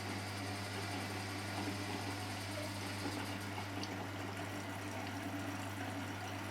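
Hotpoint Extra WMXTF742K washing machine running mid-cycle: a steady hum with running water.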